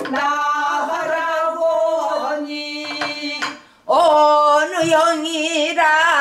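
A woman singing pansori: one long held note for about three and a half seconds, a brief break, then a new phrase that swoops up and wavers with a wide, shaking vibrato.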